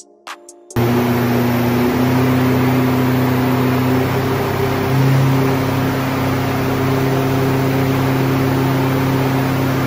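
Vauxhall Astra Coupe's turbocharged 2.0-litre four-cylinder Z20LET engine running at a steady speed on a rolling-road dyno, driving the rollers, over the rush of the dyno's cooling fans. It starts suddenly about a second in and then holds an even pitch and level without revving up or down.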